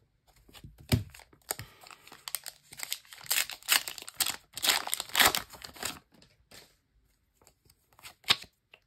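A foil trading-card packet being torn open and crinkled, in a run of tearing and rustling from about a second in until about six seconds. After that come a few short, lighter handling sounds as the cards are slid out, with one sharper click near the end.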